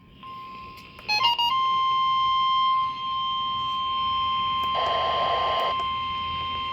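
NOAA Weather Radio broadcast with a quick run of short beeps about a second in, followed by the steady 1050 Hz warning alarm tone, a single sustained high tone. A brief burst of static cuts across the tone about five seconds in.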